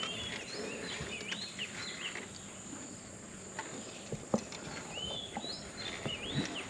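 A bird calling a short phrase of notes that slide up and down, given twice about five seconds apart, over a steady high insect drone, with a few light knocks.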